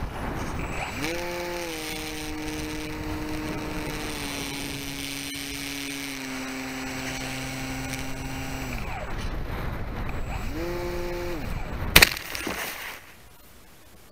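FPV model plane's motor and propeller picked up by the on-board camera over wind noise: the motor whines up about a second in, holds with slowly sagging pitch, cuts out after about eight seconds, and gives one short burst of throttle. Near the end the plane strikes the ground nose-first with a single loud crash, and the motor sound stops.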